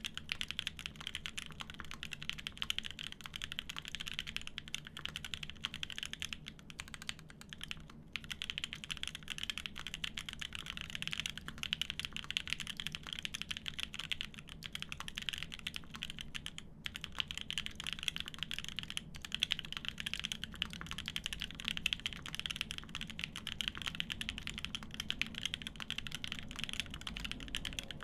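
Continuous fast typing on a Semo TKL mechanical keyboard with lubed Konpeitou switches in an aluminium plate and GMK keycaps: a dense, steady stream of key clacks with only a couple of brief gaps.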